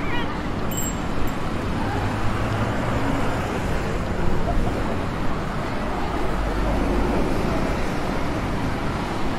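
Busy city-street traffic noise: buses and cars running on a wet road, a steady dense noise, with a low rumble swelling past about two-thirds of the way through as a heavy vehicle goes by.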